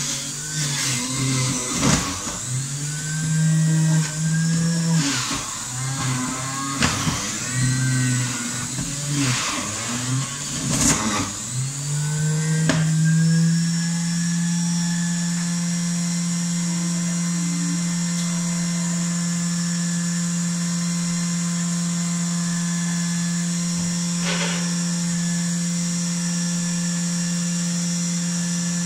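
Electric juicer motor running, its hum sagging and recovering with sharp knocks and crackles as fruit is pushed down the feed chute. After about 13 seconds it settles into a steady hum, running empty.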